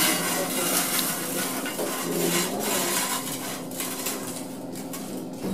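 Cremated dog bone fragments being scooped and pushed with a metal dustpan across a stainless steel tray, a dry scraping and clatter of bone on steel.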